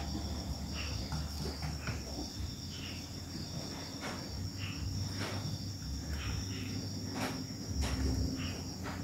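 Steady high-pitched insect trill, like crickets, over a low hum, with faint short ticks scattered through.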